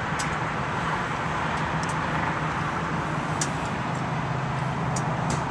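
Steady low mechanical hum with background noise, and a few faint short clicks scattered through it.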